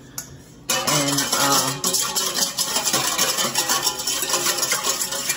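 Wire whisk beating red wine vinegar and sugar in a stainless steel mixing bowl: a fast, continuous metallic rattle that starts suddenly just under a second in.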